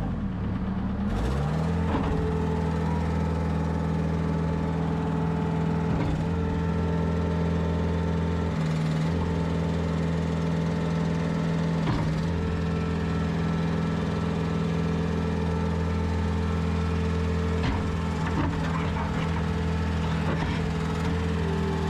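Diesel engine of a Bobcat T190 rubber-track skid steer loader running steadily under throttle, picking up speed about a second in, with a few brief clanks.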